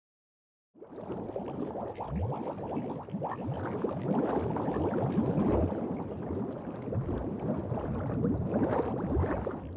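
Underwater bubbling sound effect: a dense, continuous stream of bubbles that starts abruptly about a second in.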